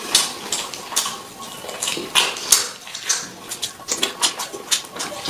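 Close-up eating sounds of someone eating fish head: wet chewing, lip-smacking and sucking, heard as an irregular run of short clicks and smacks, several a second.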